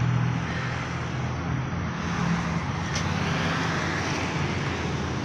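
Road traffic on a town street: a vehicle passing, loudest about two to four seconds in, over a steady low hum.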